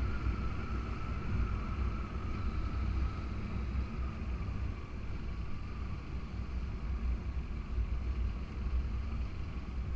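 Motorcycle riding at steady speed: a continuous engine and wind rumble on the bike-mounted microphone, with a faint thin whine that sinks slowly in pitch.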